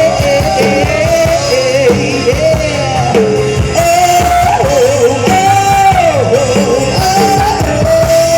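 Live rock band playing, with a singer holding long wordless sung notes over drums and guitar.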